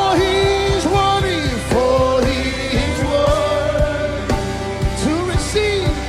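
Live gospel worship music: voices singing a slow, held melody over a band's bass and drums with a steady beat.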